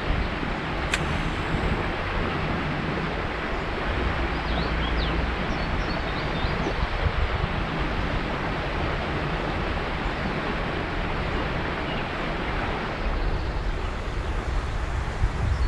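Steady rush of flowing river water, with wind buffeting the microphone as a low rumble.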